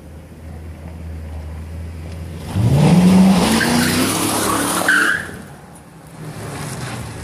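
2006 Ford Crown Victoria Police Interceptor's 4.6-litre V8 through Hooker Super Comp Turbo mufflers, accelerating hard past at close range. The exhaust note builds as the car approaches, is loudest with its pitch climbing as it passes, gives a short tire chirp about five seconds in, then fades as the car drives away.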